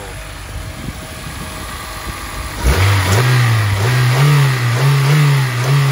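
Honda S2000's F20C 2.0-litre inline-four VTEC engine idling, then revved with the hood open about two and a half seconds in. The revs are held up, rising and dipping several times under repeated throttle blips, and respond quickly to the throttle.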